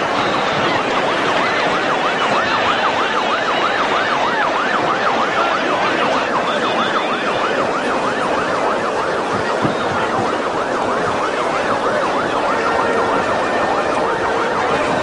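Emergency vehicle siren in a fast yelp, its pitch swinging up and down a few times a second, over the steady noise of a large crowd.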